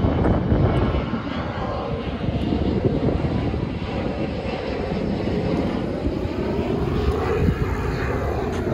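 Jet airliner flying low overhead: a steady, loud engine roar.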